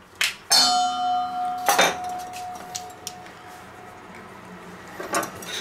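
A stainless steel mixing bowl knocked several times as a food chopper's container is tapped and scraped empty against it; one strike sets the bowl ringing with a clear tone that fades over about three seconds. Another knock comes near the end.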